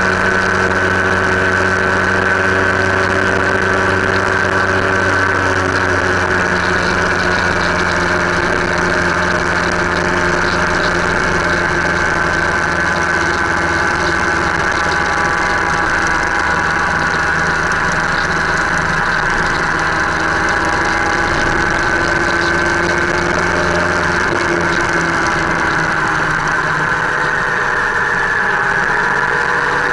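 Motorcycle engine running steadily while riding along at an even road speed, picked up by a camera mounted on the bike, with wind and road noise. The engine note holds mostly steady and shifts in pitch a little near the end.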